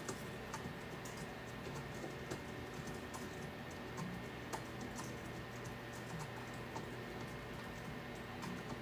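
Light, irregular clicks and taps over a steady background hum.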